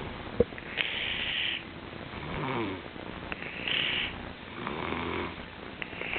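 Snoring in a steady rhythm, a full breath cycle about every two and a half seconds: a hissing breath alternating with a lower, pitched snore. A short sharp click sounds near the start.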